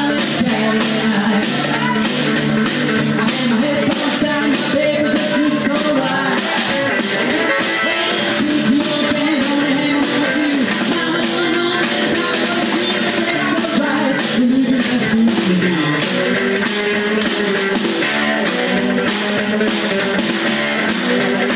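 Live rockabilly: an electric guitar played with a snare drum keeping a driving beat, and a man singing.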